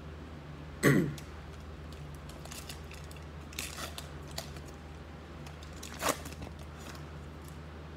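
A man's short cough about a second in, the loudest sound, then a few soft rustles and slides of trading cards being flipped through by hand.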